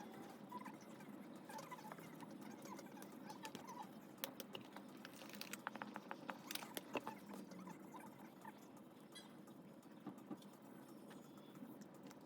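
Faint light pattering and clicking, with a run of sharp taps about four to seven seconds in.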